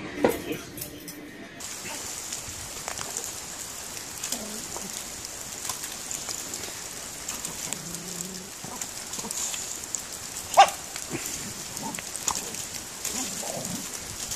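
Steady hiss of rain with a dog splashing about in a muddy puddle, and a single sharp knock about ten and a half seconds in. A thump sounds near the start, before the rain begins.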